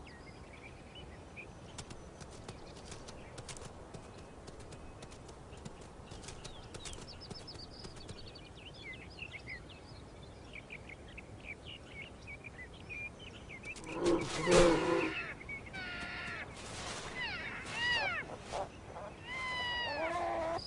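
Faint small-bird chirping over a quiet outdoor background, then, about two-thirds of the way in, elk calling: one loud call followed by a string of high calls that fall in pitch.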